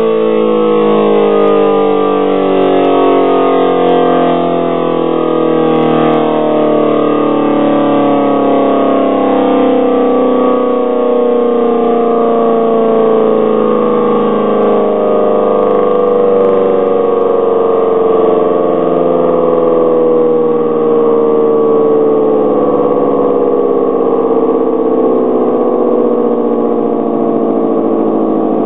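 Federal Model 5T dual-tone siren winding down, its chord falling slowly and steadily in pitch while staying loud, as the rotor coasts to a stop.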